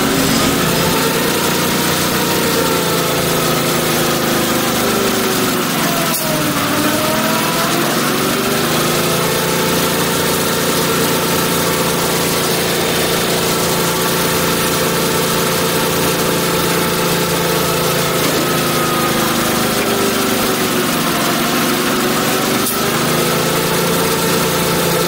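Truck engine running steadily, its pitch sagging and recovering about six seconds in and again around twenty seconds in.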